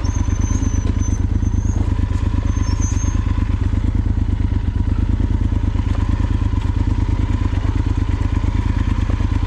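Yamaha Super Ténéré XT1200Z's parallel-twin engine running at low, steady revs, its exhaust pulses beating evenly.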